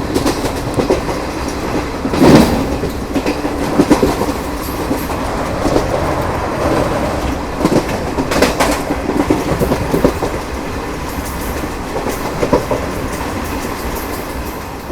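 ICF passenger coaches running at speed over jointed track: a steady rumble and rattle of the wheels on the rails, with clusters of clickety-clack as the wheels cross rail joints every few seconds.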